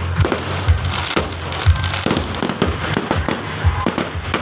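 Aerial fireworks display: shells bursting in quick succession, with sharp bangs coming a few times a second over continuous crackling.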